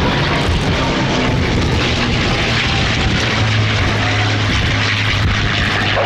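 North American P-51D Mustang's Packard Merlin V-12 engine and propeller running loud and steady as the fighter flies a low pass. A deep hum in the engine note strengthens about halfway through.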